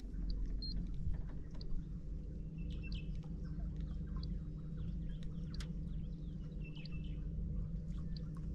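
Steady low hum of a boat motor running, with small birds chirping and tweeting now and then over it.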